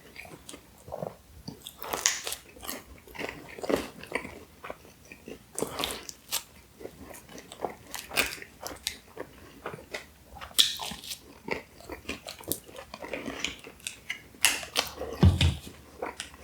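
Close-miked mouth sounds of a person chewing and biting pizza: many short, irregular clicks and smacks.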